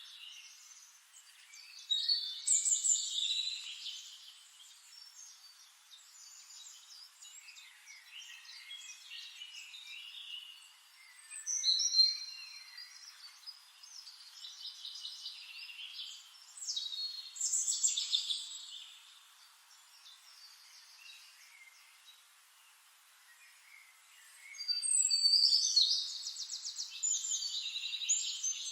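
Songbirds singing and chirping in bursts, with quieter stretches between; near the end a bird sings a fast, rapid trill.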